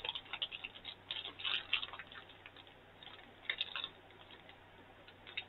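Candy bar wrapper crinkling and crackling in irregular bursts as it is pulled open by hand, thinning out near the end.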